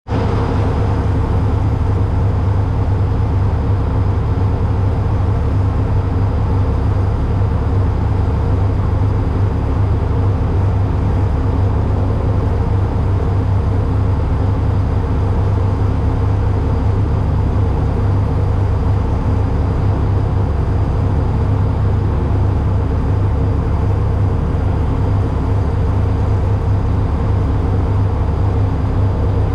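Ford EcoBoost trophy truck engine running at a steady pitch under a heavy low rumble, with no revving up or down.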